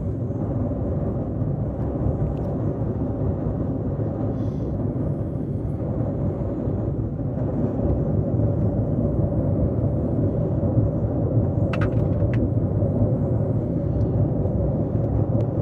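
Steady rumble of a passenger train running on the rails, heard from inside the coach; it gets a little louder about halfway through.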